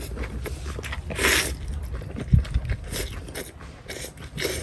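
A man slurping and chewing rice vermicelli noodles from a spoon, with the longest, loudest slurp about a second in and shorter ones later. A single dull knock sounds about halfway through.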